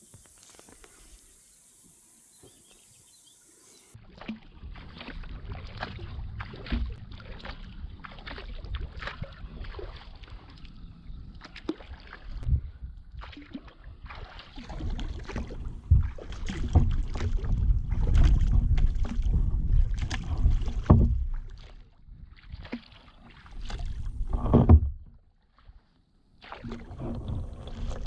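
Kayak paddling: irregular paddle splashes and knocks against the hull over a low rumble, heaviest in the middle stretch. It opens with a few seconds of steady high hiss before the paddling begins.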